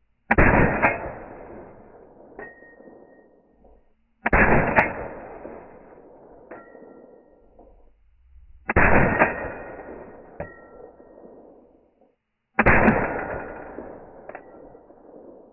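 Four single shots from a suppressed AR-15, fired slowly about four seconds apart, each a sharp report with a decaying tail. About two seconds after each shot a spent brass case lands with a small metallic clink and a short ring.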